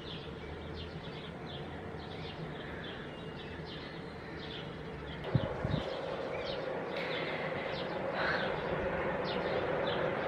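Small birds chirping over and over in short, high calls. Two low thumps come about five seconds in, followed by a steady low hum.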